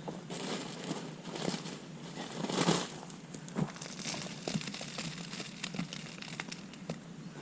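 Irregular rustling and crinkling as wood mulch is scooped and spread by hand, with a louder rustle about two and a half seconds in.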